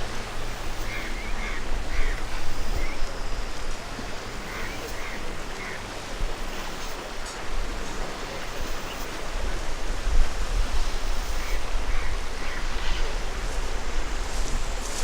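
Outdoor city ambience: a steady wash of noise over a low rumble, with a few short clusters of calls standing out near the start, in the middle and near the end.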